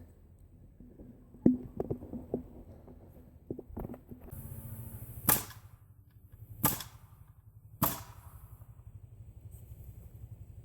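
Nails being driven into wood during the build: a few light knocks, then three loud sharp strikes a little over a second apart. A steady hum with a hiss sets in about four seconds in.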